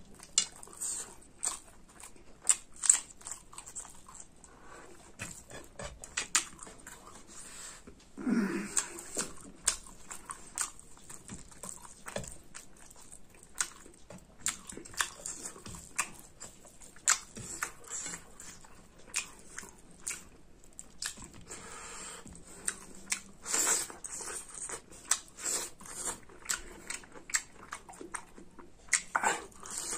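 Close-up eating sounds: wet chewing and lip smacking on mouthfuls of rice and pork curry eaten by hand, a quick run of small clicks. Three brief, louder voiced noises stand out: about 8 seconds in, at about 23 seconds and near the end.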